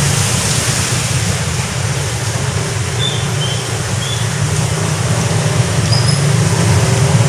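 Heavy rain pouring down, a steady dense rushing noise.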